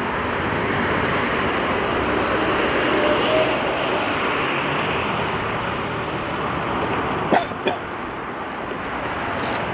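Steady rushing background noise, with two brief sharp sounds a little after seven seconds in.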